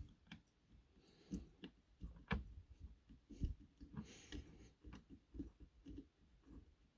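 Faint scattered clicks and light knocks of a small screwdriver and tiny screws being worked into a model locomotive's buffer beam, with a short soft scraping hiss twice.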